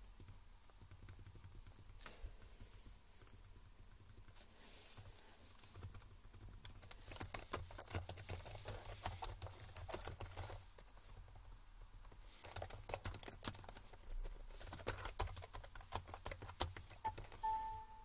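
Lenovo laptop keyboard being typed on to test its keys after water-damage repair: a few scattered key clicks, then two bursts of rapid typing separated by a short pause. A short electronic tone sounds near the end.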